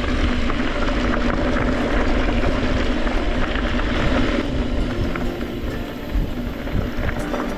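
Steady wind rush on an action camera's microphone mixed with tyre and trail noise from an e-mountain bike being ridden.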